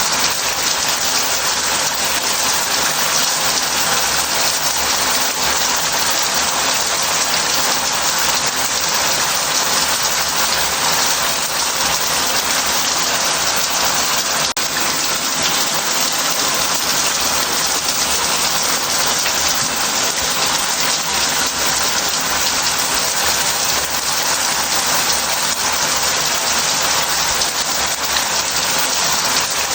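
Shower head spraying water into a bath: a steady, even hiss of falling spray that does not change.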